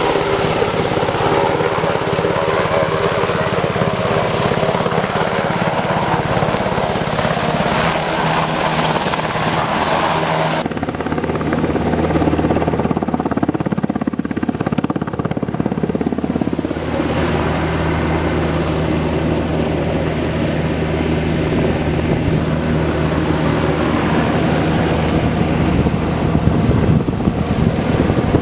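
UH-60 Black Hawk helicopter hovering, its rotor and turbine engines running steadily. About ten seconds in the sound changes abruptly, after which a steady low hum stands out.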